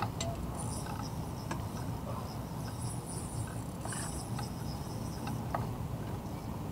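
Insects chirping in repeated high-pitched bursts over a low steady rumble, with a few sharp clicks scattered through.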